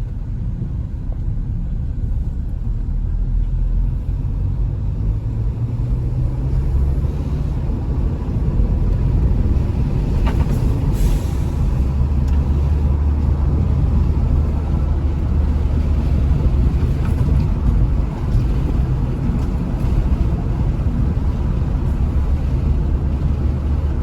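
2014 Hyundai Veloster Turbo's turbocharged four-cylinder engine and road noise while driving, the engine note rising in pitch over the first several seconds, then a steady low rumble. The engine still has an intermittent misfire on cylinders 1 and 3 after new spark plugs.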